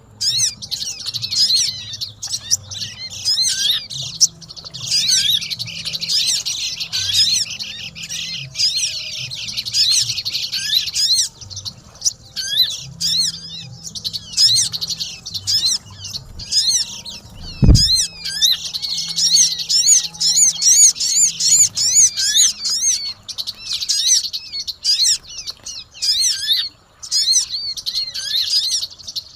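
Pleci (white-eye) and sogon songbirds chirping and trilling busily, many quick notes overlapping. There is one low thump about 18 seconds in.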